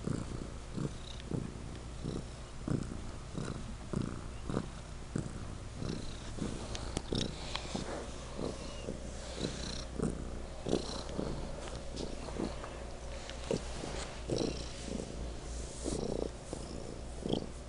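Domestic cat purring particularly loudly close to the microphone, the purr swelling and easing about twice a second with each breath in and out.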